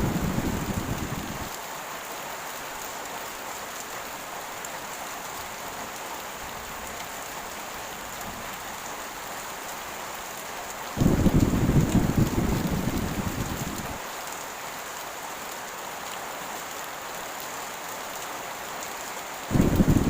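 Heavy rain falling steadily, with low rolling thunder rumbles: one dying away in the first second or so, one about halfway through lasting about three seconds, and another starting just at the end.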